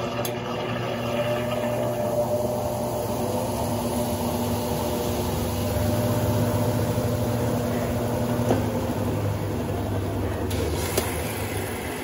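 Brastemp Total 9 kg top-load washing machine (BWL09A) in a spin: a steady motor-and-basket hum with a low whine that stops about two-thirds of the way through. Near the end, water starts hissing in as the rinse spray hits the still-turning basket. The spin is only about 15 seconds long, which the owner finds far too short.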